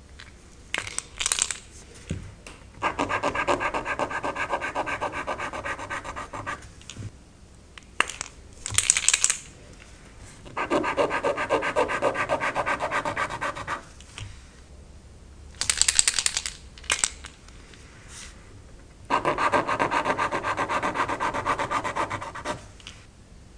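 Metallic highlighter pens scribbled back and forth on grid paper in three passes of a few seconds each, a rapid scratchy rubbing. Between the passes come short, sharper, higher clicks and rustles of the pens' clear plastic caps and barrels being handled.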